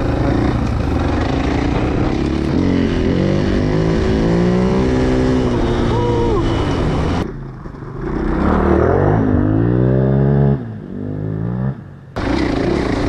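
2019 KTM 500 EXC-F single-cylinder four-stroke dirt bike engine under hard throttle, its revs climbing in steps as it shifts up through the gears. After a break about halfway through, it is heard from the roadside, revving up as it approaches, then falling away.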